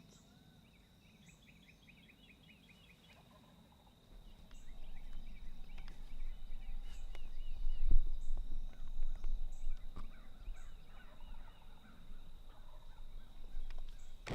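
Distant Osceola wild turkey gobbling several times in quick rattling runs over a steady high insect-like whine. A low rustling noise comes in about four seconds in.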